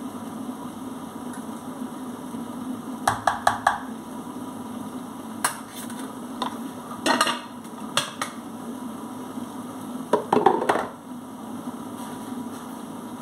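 Kitchen things handled on a stainless-steel counter: plastic containers and utensils set down and moved, making scattered clicks and knocks, with a quick run of four about three seconds in and a cluster near ten seconds, over a steady low hum.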